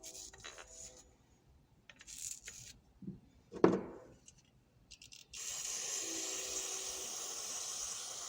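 Light handling clicks and one sharp metal clack, then a steady hiss of aerosol cleaner sprayed into a ratchet head, flushing out old grease and buffing compound.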